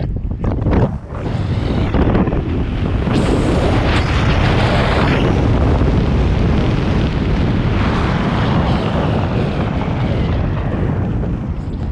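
Wind buffeting a helmet camera's microphone as a parachutist flies a canopy in to land: a loud, steady rush that eases off near the end.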